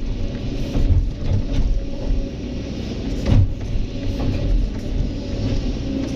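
Kobelco SK200 excavator's diesel engine running steadily under load while it works, with several knocks, the loudest about three and a half seconds in.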